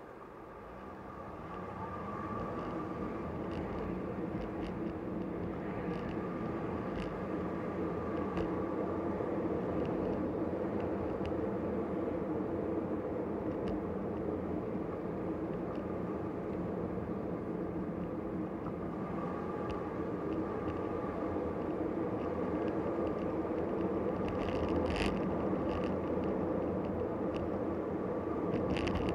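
Car driving on a city road, heard from inside the cabin: a steady hum of engine and tyre noise that grows over the first few seconds as the car gathers speed, then holds even, with a few faint clicks near the end.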